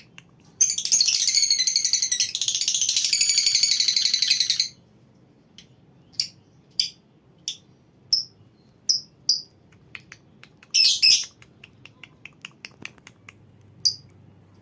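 Lovebirds calling: one long, fast chattering trill (the 'ngekek') lasting about four seconds, then scattered short, sharp chirps and ticks, with a brief burst of chatter about two-thirds of the way through.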